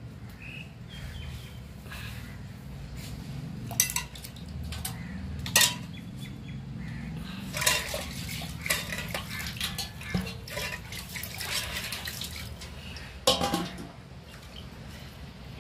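A pot of crab curry bubbling over a wood fire, with sharp metal clinks against the pot a few times, and a louder clatter about two seconds before the end as a steel plate is set on the pot as a lid.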